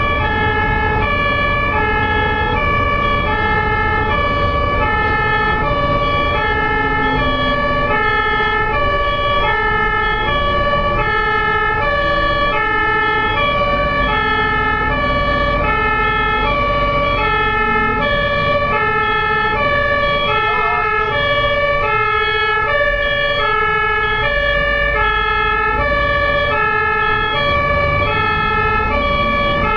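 Ambulance siren sounding a steady two-tone hi-lo call, its two pitches alternating evenly, over low road noise.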